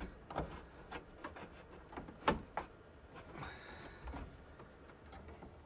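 A few separate small clicks and taps from hands working at a DC breaker box and its wiring, the sharpest about two seconds in.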